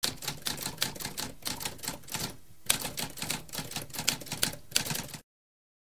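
Typewriter typing: a quick run of key strikes, about six a second, with a brief pause near the middle, stopping suddenly about five seconds in.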